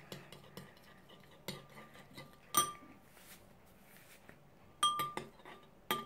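Metal spoon stirring a slime mixture in a glass bowl, scraping and clinking against the glass. Sharper clinks with a brief ring come about two and a half seconds in and twice near the end.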